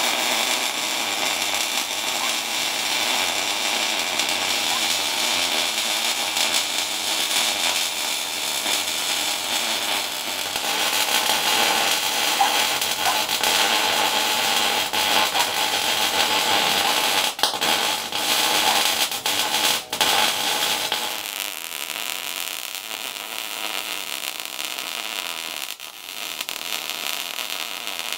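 Electric arc welding on steel tube: a steady, loud sizzling hiss from the arc, broken twice briefly a little past the middle where the arc stops and restarts.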